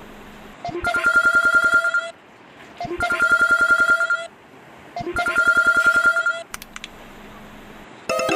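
Old-style telephone ringtone: three rings about two seconds apart, each a fast trill held at one steady pitch.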